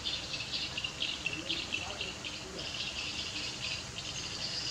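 A chorus of insects chirping in rapid, high-pitched pulses that carry on without a break.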